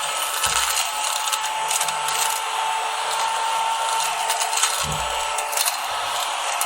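Tihoo mini desktop sweeper vacuum, powered by two AA batteries, running steadily with a small-motor whine and rushing air as it is pushed over a table, with a few short clicks from pencil leads and shavings being swept up.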